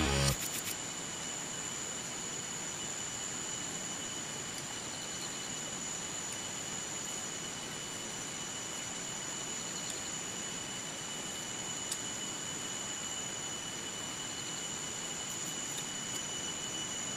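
Steady high-pitched drone of forest insects (cicadas or crickets) over a constant hiss. Background music cuts off right at the start.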